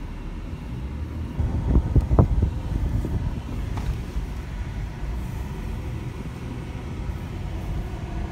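Car cabin noise while driving: a steady low rumble of engine and tyres on the road, heard from inside the car, with a few short thumps about two seconds in.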